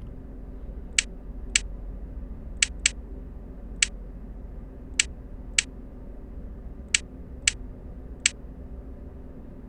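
Short, sharp clicks from a video keno machine as spots are marked on the cards, about ten of them at uneven intervals, over a low steady hum.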